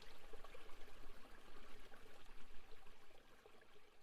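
Gentle waterfall ambience: steady splashing and trickling water, fading down near the end.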